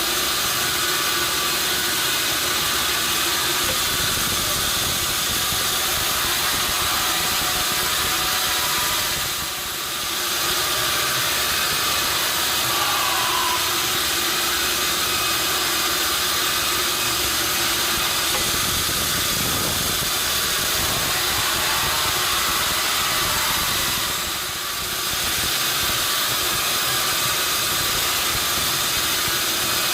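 Sawmill machinery running steadily: a loud hiss with a constant hum underneath, easing off briefly twice.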